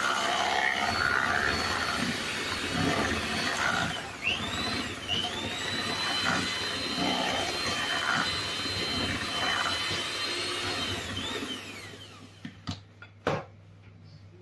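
Electric hand mixer running, its beaters whirring through cake batter of creamed butter, sugar and eggs in a metal bowl. The motor's whine drops and climbs back about four seconds in, and the mixer stops about twelve seconds in, followed by a few sharp knocks.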